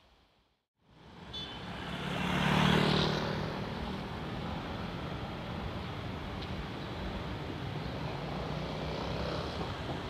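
Outdoor street ambience fading in after a brief silence. A loud rushing swell with a low hum peaks about three seconds in, then settles into a steady rumble of traffic and wind.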